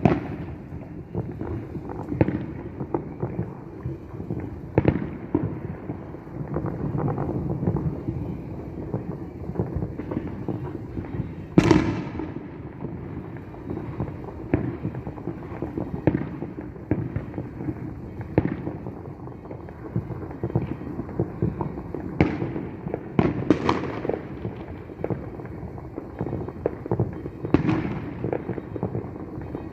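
Aerial fireworks bursting: a steady run of overlapping booms and crackles, with one loudest bang about twelve seconds in and another cluster of sharp bangs late on.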